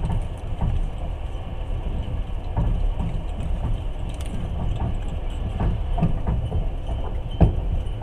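Passenger train running, heard from inside the carriage: a steady low rumble of the wheels and running gear with irregular knocks and rattles, the sharpest about seven seconds in.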